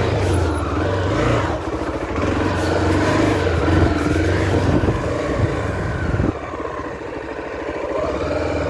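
Honda Tornado 250's single-cylinder four-stroke engine running while ridden, revs rising and falling. The engine drops off sharply about six seconds in and runs on more quietly.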